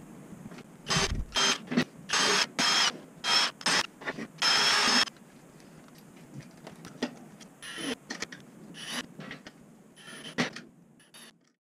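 Hand sanding inside a small wooden box with a sanding sponge: about eight short strokes in quick succession. Then a few faint, scattered scrapes and clicks.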